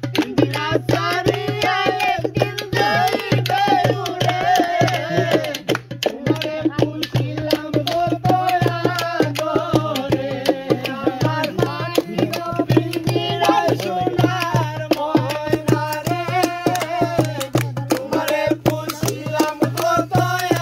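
A young man singing a Bangla folk song over a quick, steady beat hand-drummed on an upturned metal pot and a red plastic jug. A steady low hum runs underneath.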